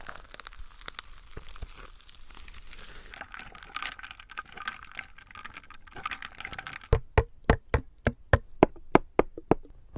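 ASMR tapping on a Toshiba refrigerator: light scattered clicks and rustling, then about a dozen quick, sharp taps, about four a second, in the last three seconds.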